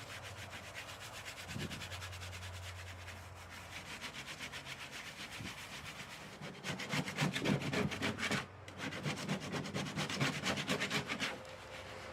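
Rapid, rhythmic rubbing strokes against a surface, as of hand scrubbing or sanding. About halfway through they grow much louder, break off briefly, then carry on until near the end.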